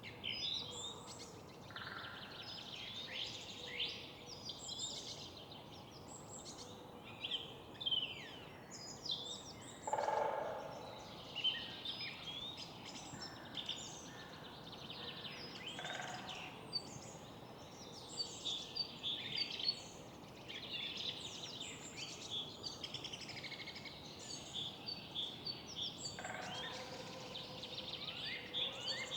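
Many songbirds singing and calling at once in spring, overlapping chirps and trills throughout, over a steady low background noise.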